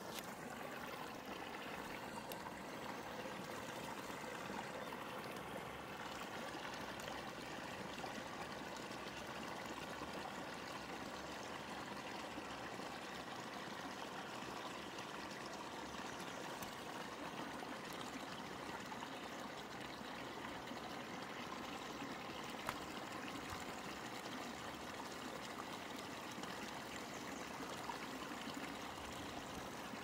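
Shallow, rocky mountain stream flowing and trickling over stones, a steady, even rush of water.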